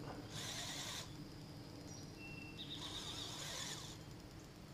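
Electric power-assist fishing reel's motor whirring faintly in two short bursts while reeling in a hooked carp.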